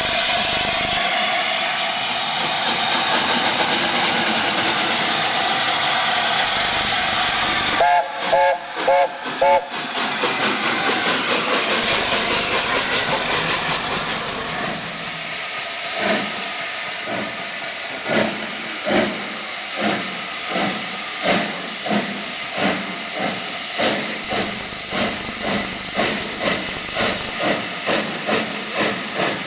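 Steam locomotives hissing loudly, with steam blowing from the cylinder cocks of an LNER A4 Pacific. About eight seconds in come a few short whistle toots. In the second half a steam locomotive's exhaust beats start slow and quicken as it gets its train moving.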